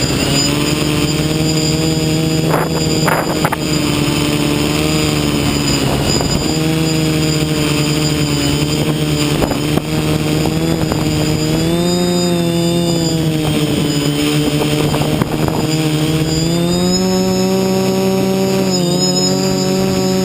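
FPV multirotor drone's electric motors and propellers buzzing steadily, the pitch sliding up and down with throttle, rising about twelve seconds in and again around seventeen seconds.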